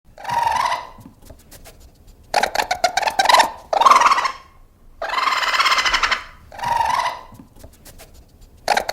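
An animal calling six times in a row, each call about half a second to a second long with short pauses between, harsh and loud.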